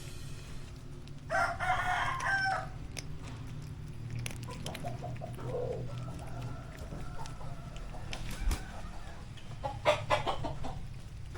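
Chickens: a rooster crows about a second in, softer clucking calls follow, and another loud call comes near the end.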